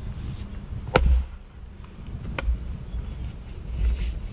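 Fiskars splitting axe chopping into a seasoned firewood round: one sharp chop about a second in, then a second, lighter knock about a second and a half later.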